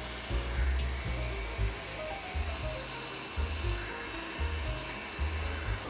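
Steady rushing air of a vacuum hose nozzle sucking loose metal powder off an SLM printer's build plate, over background music with a pulsing bass line.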